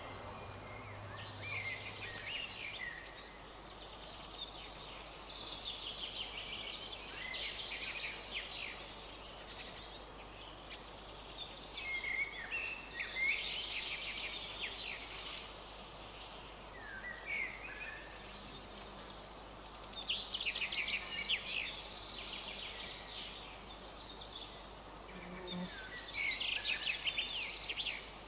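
Outdoor birdsong: several wild birds singing and calling in varied short phrases and trills over a faint background hiss.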